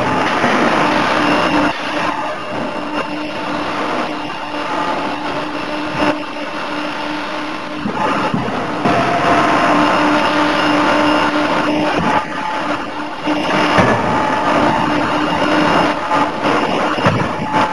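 CNC forging hammer running with a steady mechanical hum and noise, with a few sharp knocks scattered through.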